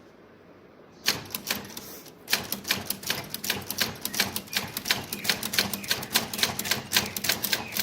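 Manual typewriter being typed on: sharp key strikes begin about a second in, pause briefly, then run on fast and fairly evenly at about five a second.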